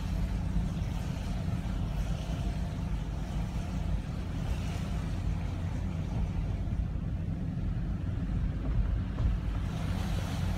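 Interior noise of a car driving slowly on a wet street: a steady low rumble of engine and tyres inside the cabin, with a fainter hiss above it.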